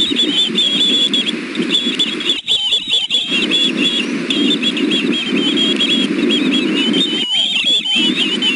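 Three young ospreys food-begging: a rapid, unbroken string of short, high chirping calls, over a steady low rumbling noise.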